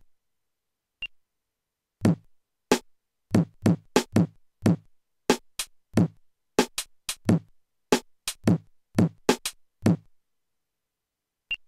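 Roll-up electronic drum kit's sound module playing sampled drum hits as its rubber pads are struck with drumsticks. About twenty single hits at an uneven pace of two to three a second, each sliding down in pitch as it fades. They start about two seconds in and stop near the end.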